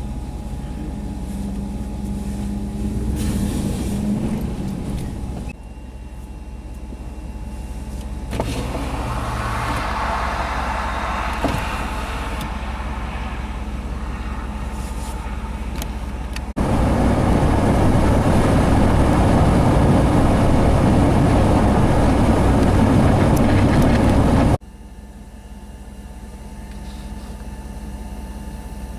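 Several cut-together stretches of vehicle engine and road noise, with steady hum. In the middle, an abrupt, louder stretch of rushing noise from strong blizzard wind buffeting the microphone cuts in and then stops suddenly.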